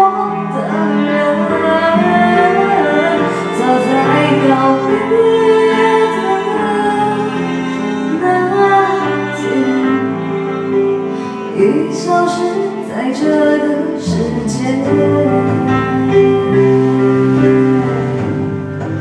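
A woman singing into a handheld microphone over recorded backing music.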